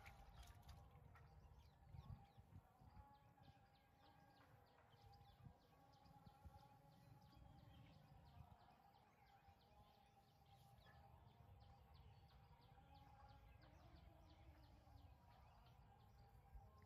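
Near silence: faint outdoor field ambience, with a low rumble and many faint high chirps and ticks.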